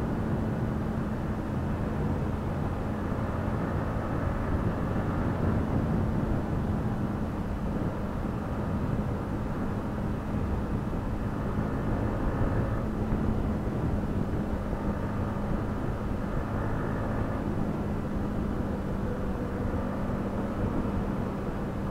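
Yamaha MT-15's 155 cc single-cylinder engine running steadily at cruising speed in fifth gear, heard from the handlebars with wind rushing over the microphone.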